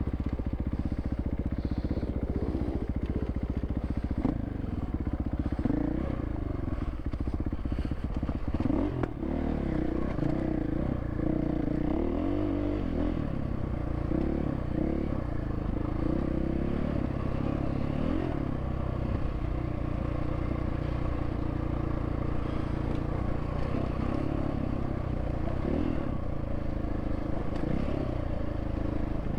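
Dirt bike engine running on a rough trail, its revs rising and falling over and over as the throttle is worked.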